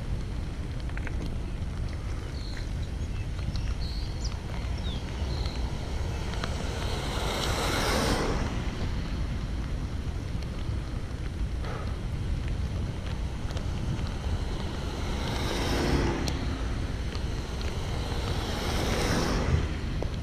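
Steady wind buffeting the microphone over a low rumble while riding along a rain-soaked path. Three swells of hiss build and fade, about eight seconds in and again around sixteen and nineteen seconds.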